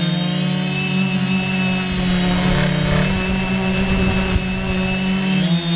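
Multirotor drone's motors and propellers buzzing steadily, with a constant high whine above the buzz. A low rumble joins in for a couple of seconds in the middle, and the buzz shifts in pitch near the end as the motor speed changes.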